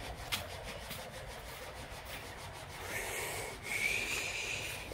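Eucalyptus leaves and twigs rustling and rubbing against the phone as it is carried in among the saplings. A thin, steady high tone sounds for about a second near the end.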